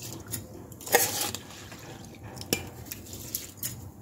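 A spoon stirring rice in a pot of boiling water, with a few clinks of metal on the pot, the sharpest about a second in and again about two and a half seconds in.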